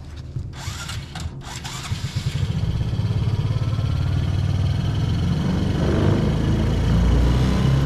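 A Honda Supra 125 motorcycle engine driving a small boat, throttled up as the boat pulls away: its low drone grows steadily louder from about two seconds in. A few brief knocks come before it picks up.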